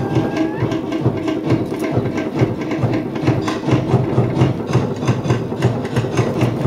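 Tahitian drum ensemble playing a fast, driving beat for an ʻōteʻa hip-shaking dance, about four strong low beats a second with quicker strikes in between.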